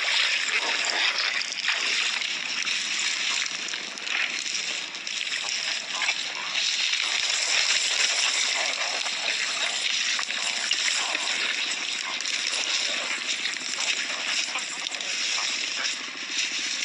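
Water sloshing and splashing steadily and unevenly.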